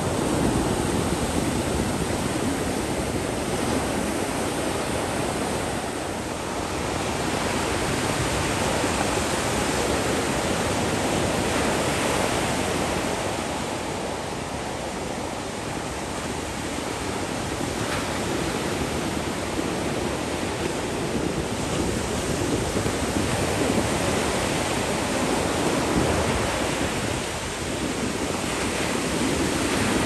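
Ocean surf breaking on a sandy beach: a steady rushing wash of waves that swells and eases slowly every several seconds.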